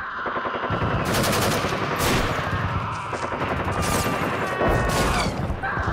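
Battle sound effect of dense, continuous rapid gunfire, the shots running together without a break.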